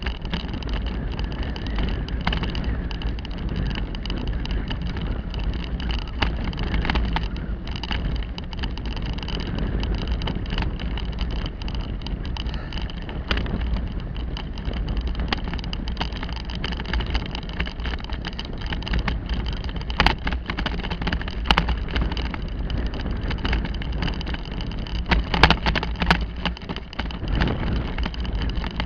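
Bicycle ridden along a bumpy dirt track, with wind rumbling steadily on the microphone over the tyre and frame noise. Sharp rattles and knocks come from bumps, several of them in the second half.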